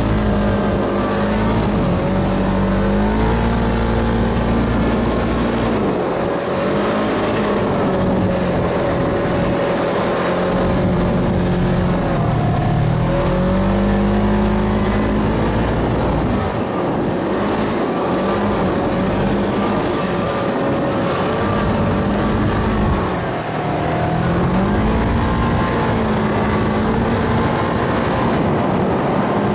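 Side-by-side buggy's engine running under load from on board, its pitch rising and falling several times as the throttle opens and closes over the dunes.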